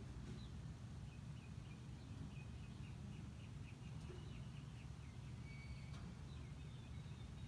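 Birds chirping faintly in quick repeated series over a steady low rumble.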